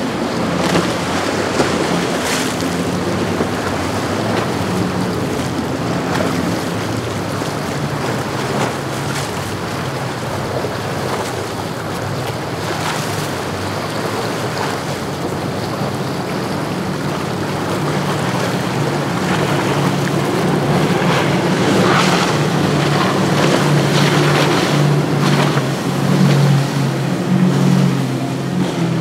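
Outboard motors of center-console boats running at speed through choppy inlet water, with rushing spray and waves and wind buffeting the microphone. The engine drone grows louder over the last several seconds as a multi-outboard boat runs past.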